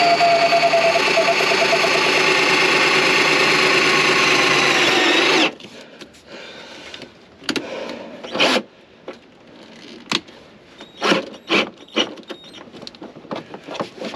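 Cordless drill running steadily as it bores into the van's sheet-metal underbody, then cutting off abruptly about five seconds in. Scattered light taps and clicks follow as the hole is handled.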